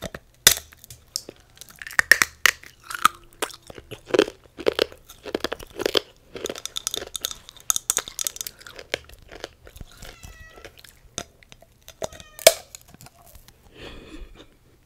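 Close-miked crunching and chewing of a clear edible wine glass bitten apart, with repeated sharp cracks between stretches of chewing. One loud crack comes about twelve seconds in.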